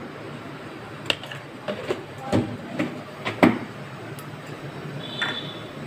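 A spoon and containers clinking and knocking against a stainless steel mixing bowl: a handful of sharp clicks between about one and three and a half seconds in, over a steady low hum.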